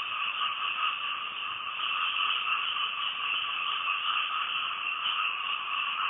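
A dense chorus of many frogs calling together, a steady unbroken din that mixes a lower and a higher pitch.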